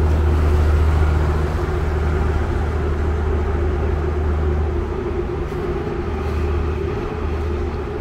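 Sightseeing boat's engine running with a steady low drone, a little louder in the first second or so.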